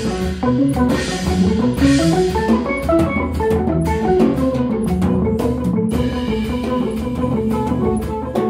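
Jazz band playing: a semi-hollow electric guitar solos in quick runs of single notes, over drums and cymbals.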